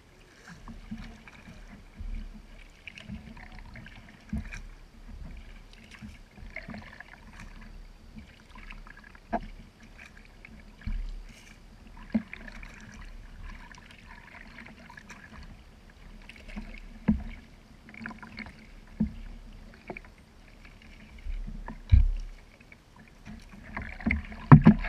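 Kayak paddle strokes in the water, dipping and splashing in patches about every two seconds, with drips and a few sharp knocks, the loudest near the end.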